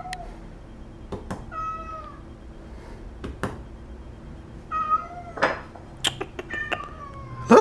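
A house cat meowing several times, short calls spaced a few seconds apart, asking for its food. A few sharp clicks fall between the meows.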